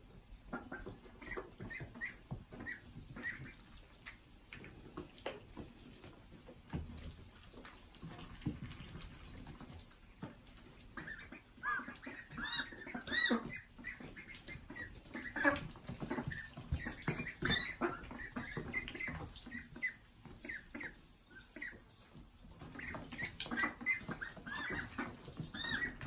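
Young ducks peeping in many short, high chirps, over soft clicks and scuffs of pecking and scratching in wood shavings. The chirps come thickest in the middle and again near the end.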